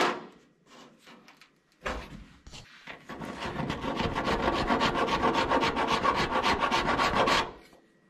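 Hand body file scraping Bondo auto body filler on a truck fender edge. The rapid scraping strokes start about two seconds in, build to a steady rasping and stop abruptly just before the end. There is a sharp click at the very start.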